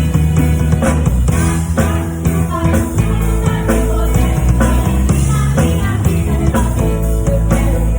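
A full band playing a rock-style song with singing and guitar, the drum kit's hits keeping a steady beat.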